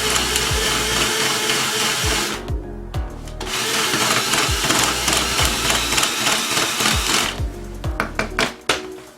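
A small electric power tool whirs in two long runs, stopping briefly between them, then falls to a few light clicks near the end. Background music with a steady thumping beat plays underneath.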